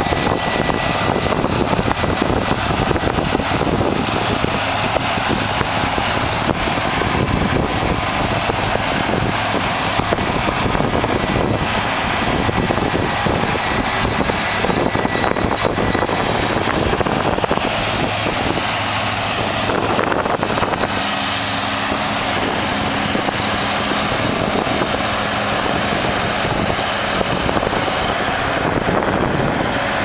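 Combine harvesters running as they cut wheat: a steady engine drone with the whir of the threshing machinery, and a low hum that holds steady in the second half.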